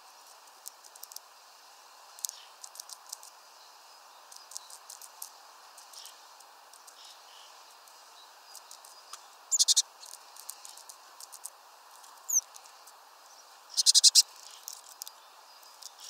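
Eurasian blue tit pecking at food in a plastic feeder tray: irregular light taps and clicks of its bill, with two louder quick flurries of taps, one just past the middle and one near the end.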